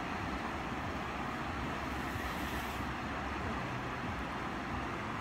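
Steady rushing noise of the flowing river, with a low rumble underneath.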